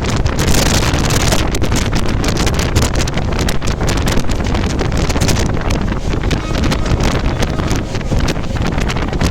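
Wind buffeting hard on the microphone in irregular gusts, over a steady low rumble of travel at speed.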